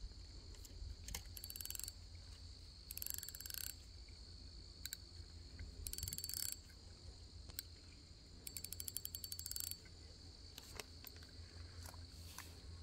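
Faint, steady high-pitched chirping of insects, with four louder buzzy insect calls of under a second to about a second each, the last a rapid string of even pulses.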